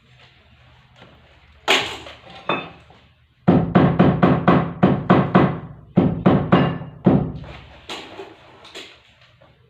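Hammer blows in a shoe repair workshop: a fast run of strikes, about four a second, each ringing briefly, with a few single knocks before and after.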